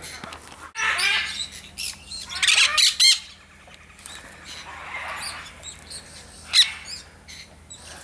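Nanday conures (black-hooded parakeets) calling: a series of harsh, shrill chirps and squawks in quick clusters, the loudest a single sharp screech about six and a half seconds in.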